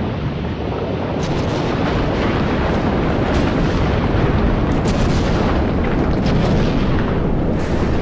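Lava fountains erupting in a volcanic crater: a loud, continuous low rumble with many short pops and splatters of lava.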